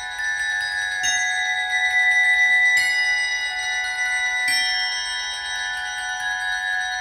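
Ringing bell-like metallic tones in a percussion piece. New notes are struck about every second and a half and left to ring, so they pile up into a held, chiming chord.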